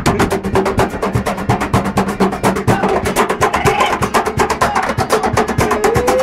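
Live acoustic band music with a double bass and a fast, even percussive beat. A short rising note comes near the end.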